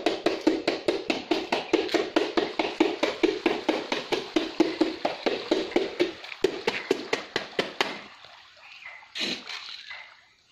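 Rapid, even tapping on a hollow plastic bucket, about five taps a second, stopping about eight seconds in: the call that brings pond fish to feed.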